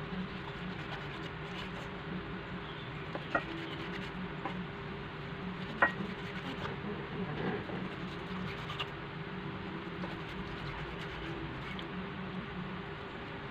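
Knife slicing through raw pork loin on a wooden cutting board: soft scraping with a few sharp taps of the blade on the board, the loudest about six seconds in. A steady low hum runs underneath.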